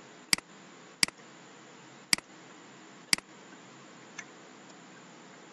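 Computer clicks: four sharp clicks about a second apart and a faint fifth near the end, each a quick double like a press and release.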